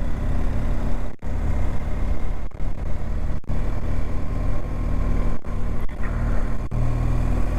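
BMW R1250GS Adventure boxer-twin motorcycle engine running steadily under way, with a hiss of wind and road noise over it. The sound cuts out briefly several times.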